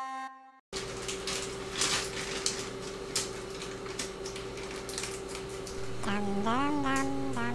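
Electronic intro music cuts off at the start; after a brief gap come light clicks and taps of something small being handled, over room tone with a steady hum. About six seconds in, a high voice starts chattering, its pitch gliding up and down.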